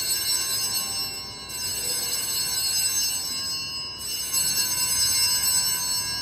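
Altar bells (a set of small Sanctus bells) shaken in strokes about two seconds apart. Each stroke is a bright, high jangle that rings on and fades. The bells mark the elevation of the host at Mass.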